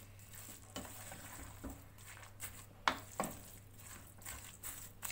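A spoon stirring minced meat with spinach and fenugreek leaves in a cooking pot. Irregular knocks and scrapes of the spoon against the pot, the sharpest about three seconds in.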